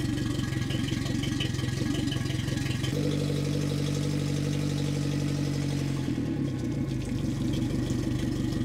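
Suzuki 175 hp four-stroke outboard idling out of the water on a garden-hose flush, its note steadying about three seconds in.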